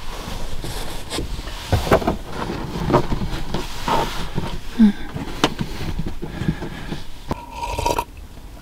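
Rustling of a quilted padded jacket and scattered knocks and taps as someone moves about inside a car, pressing a screen onto a side window and then turning to sit down.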